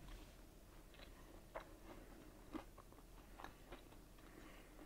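Faint chewing of a deep-fried Weißwurst in crispy beer batter, with a few soft, short crunches spread through it.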